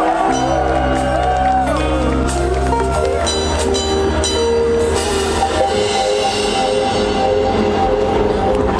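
Live pop band playing a song: a woman singing over drums and acoustic guitar.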